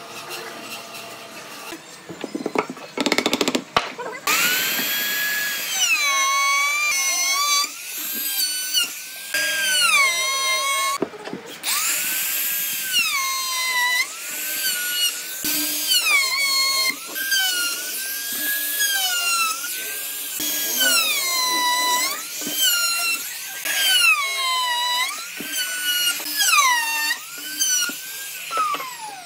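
Compact handheld trim router whining at high speed as it cuts a row of diagonal grooves into a timber block. It starts up about four seconds in, and its pitch drops each time the bit bites into the wood and climbs back as the cut ends, again and again every second or two.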